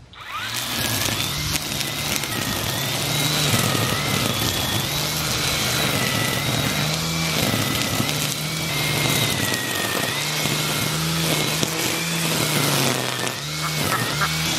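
String trimmer (weed eater) running and cutting through grass and weeds: a steady whirring with a high whine that wavers in pitch as it works.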